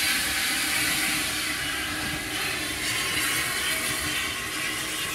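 LSWR T3 class 4-4-0 steam locomotive hissing loudly with escaping steam as it moves slowly off, a steady hiss that grows slightly fainter as it draws away.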